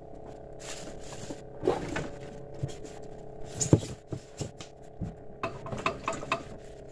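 Knocks, taps and clatter of a person moving about and handling gear in a small wooden boat, with one louder knock just past the middle and a run of small clicks near the end.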